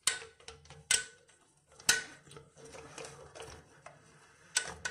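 Sharp plastic clicks and taps as the plastic coupling nut of a flexible toilet supply hose is hand-threaded onto the fill valve inlet under the tank. There are about five distinct clicks, roughly one a second, with two close together near the end.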